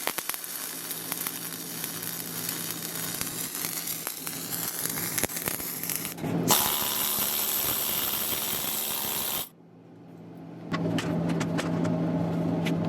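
Dual-shield flux-core wire welding arc crackling steadily as a bead is run on thick steel plate. The sound changes about six and a half seconds in, cuts off about three seconds later, and resumes near the end along with a steady low hum.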